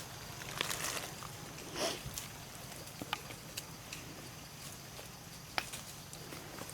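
Scattered rustles and sharp clicks, like movement over dry leaves, above a low steady hum.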